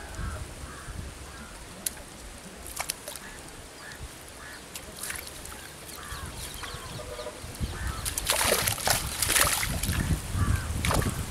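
Water splashing as a mesh cast net is hauled in through the surface by its rope, quiet at first and then in loud repeated splashes from about eight seconds in.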